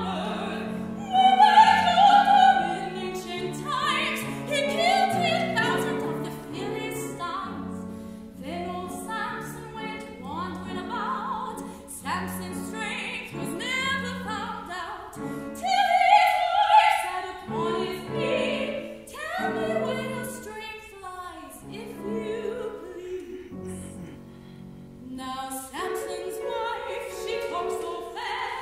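Woman singing in a classical, operatic style with piano accompaniment, with held, wavering high notes that swell loudest about two seconds in and again about halfway through.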